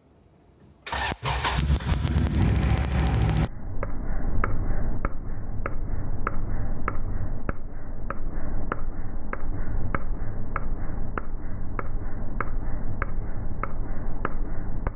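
Honda Del Sol's four-cylinder engine running on three cylinders, misfiring because one plug wire feeds a spark tester instead of its plug; it comes in about a second in. From a few seconds in, the sound is slowed down: a deep, muffled engine rumble with a sharp snap of the spark jumping the tester's gap a little under twice a second.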